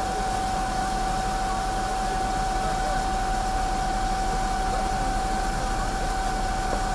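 Fire engine running steadily to power its aerial ladder: an even rushing noise with one constant hum that holds the same pitch throughout.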